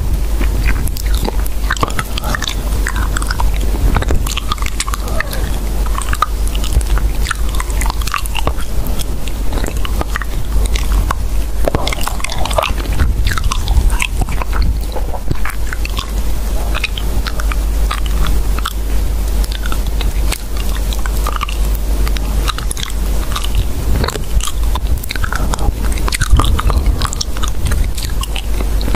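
Continuous dense crunching and crackling clicks, steady in level, over a constant low rumble.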